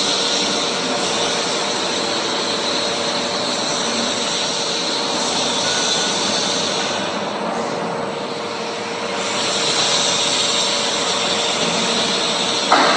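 Wrapping and winding machine running as its jig turns and shifts a chest freezer cabinet: a steady whirring hiss with a faint hum. The hiss thins for about two seconds midway, and a short knock comes near the end.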